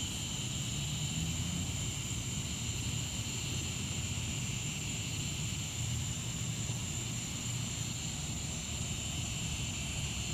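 Low steady rumble of a train, with night insects trilling steadily at a high pitch over it.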